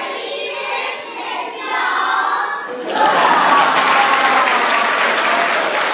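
A choir of young children singing together, then about three seconds in an audience bursts into applause.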